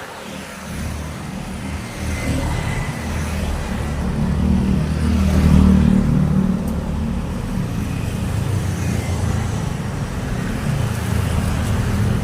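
Road traffic: vehicles passing with a steady engine and tyre rumble that builds to its loudest about halfway through, then stays fairly even.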